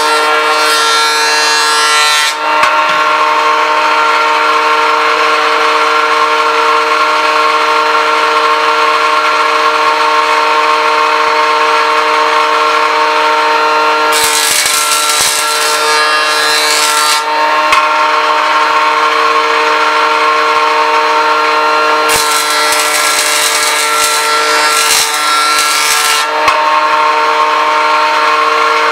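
Jointer running with a steady motor whine while oak boards are fed across its cutterhead. There are three passes, each a loud hissing cut lasting a few seconds: one ending about two seconds in, one about halfway through, and one about three-quarters through.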